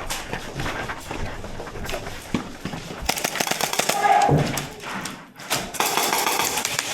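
Airsoft close-quarters game under way: a clatter of sharp clicks and thumps from airsoft guns firing and players' feet moving, with a brief shout about four seconds in.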